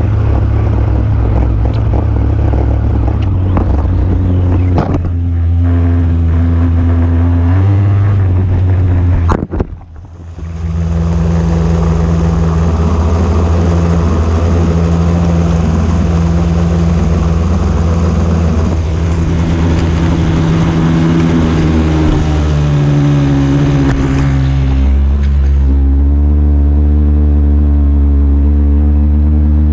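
Small two-stroke weedeater engine fitted to an RC truck, running loudly and changing pitch as the throttle rises and falls. The sound drops out sharply about nine and a half seconds in, then comes back.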